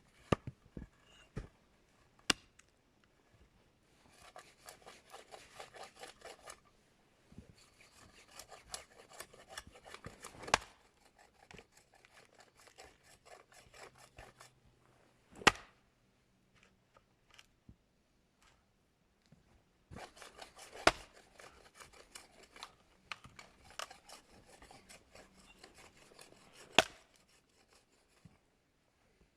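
Rapid rasping, scraping strokes on wood in spells of a few seconds, broken by a handful of sharp knocks.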